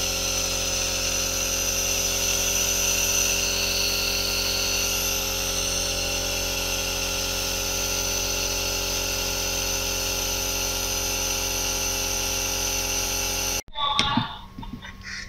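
Electric nebulizer running for an inhalation: a steady mechanical hum made of many constant tones. It cuts off suddenly near the end, followed by a few light clinks.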